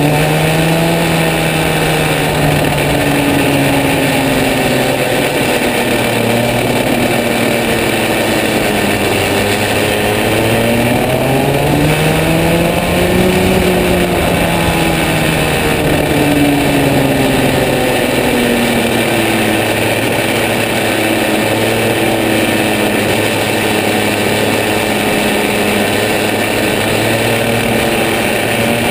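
Rotax two-stroke kart engine at racing speed, heard from the driver's seat: its pitch sags through the opening corners, climbs steadily on the straight to a peak about halfway through, then drops again into the following bends.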